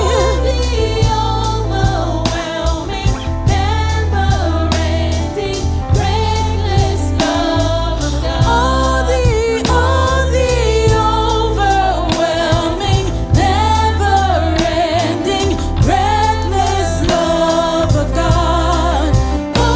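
Gospel worship song sung by several voices over a band, with heavy bass and a steady beat.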